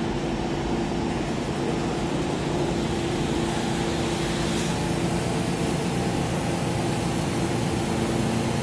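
A New York City subway M train standing at the platform with its doors open. Its air-conditioning and onboard equipment give a steady hum, with a few low steady tones.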